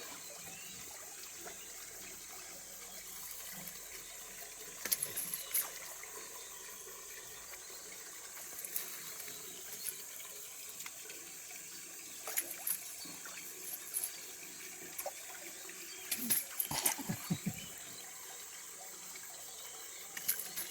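Steady trickle of running water, with short sharp splashes or clicks a few times, a cluster of them near the end.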